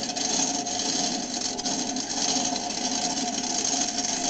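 Monster truck engine running steadily at low speed as the truck rolls along, with a steady droning tone over it.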